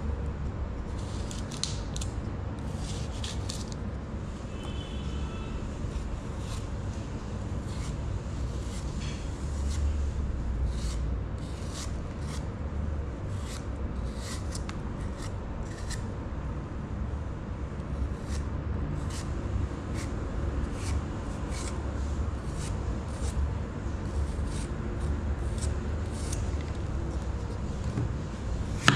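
Kitchen knife peeling and slicing an apple over a wooden cutting board: many short, irregular scraping cuts as the blade goes through the skin and flesh, over a steady low hum.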